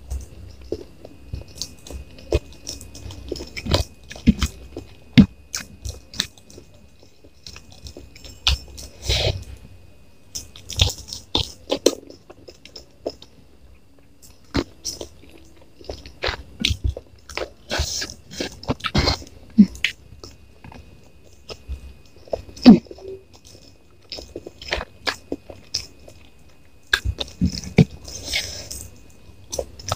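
Close-miked eating of mie goreng noodles with rice and chicken: chewing and biting with irregular wet mouth smacks and clicks.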